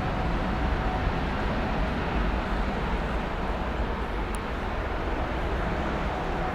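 Boeing 777-200F freighter's twin GE90 turbofans at take-off power, a steady deep jet rumble that slowly fades.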